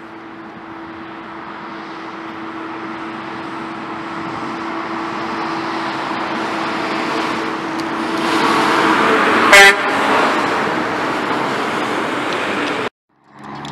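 Heavy dump trucks' engines and tyres growing steadily louder as they approach and pass, with one short, loud truck horn blast about nine and a half seconds in. The sound cuts off suddenly near the end.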